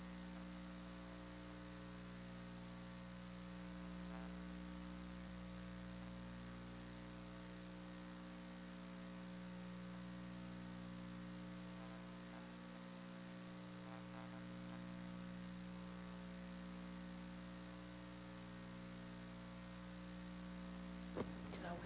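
Steady electrical mains hum with a stack of overtones on the recording line, with a sharp click just before the end.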